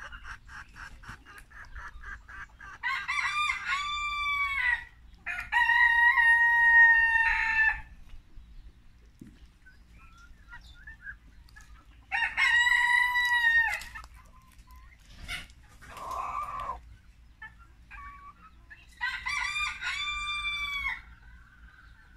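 Silkie cockerels crowing, several long crows spread through, each lasting about two seconds. A quick run of clucks comes first, and there is a short, rougher call about halfway through.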